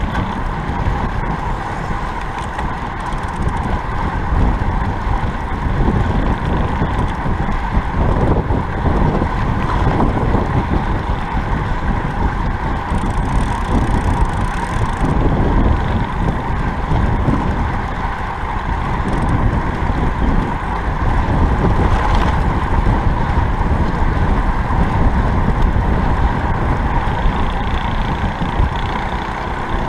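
Wind rushing over the microphone of a camera on a road bike riding fast, a loud steady rush with a constant mid-pitched hum.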